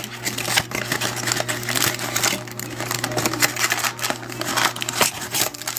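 Crinkling and rustling of trading-card packs and a cardboard card box being handled, with many small irregular clicks and taps, over a steady low hum.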